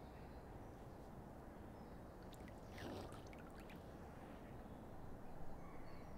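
Mute swan lifting its head out of the water while feeding: a brief splash and patter of water running off about three seconds in, over a faint steady outdoor rumble.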